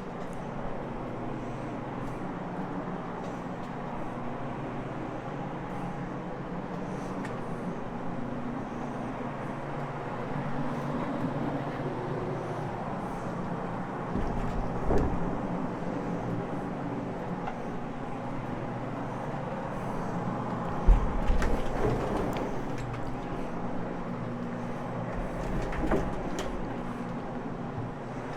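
Floor-scrubbing machine running steadily, its motor driving a cleaning pad over carpet, with a few low thumps along the way.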